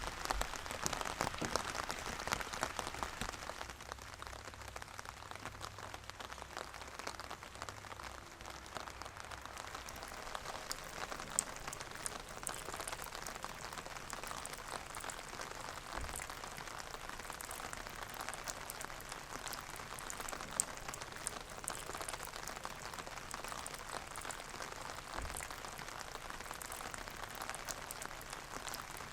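Steady rain falling, a continuous hiss of many small drop ticks with a couple of sharper single drips. It is a little heavier for the first few seconds.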